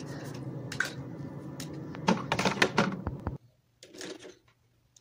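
Makeup setting spray pumped over the face in several short hissing sprays, clustered around two to three seconds in, cutting off abruptly a little after.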